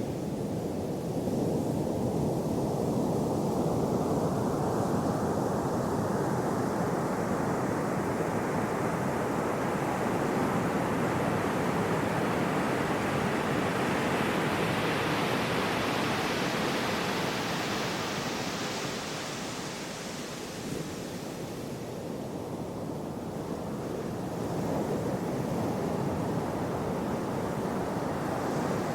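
Gentle sea waves washing onto a shore: a steady surf hiss that swells slowly for about the first two thirds, then eases off and builds again near the end.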